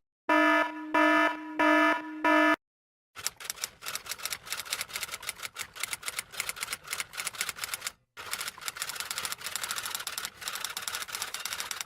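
Four short electronic beeps, evenly spaced, then after a brief pause a long run of rapid typing clicks that stops briefly about eight seconds in.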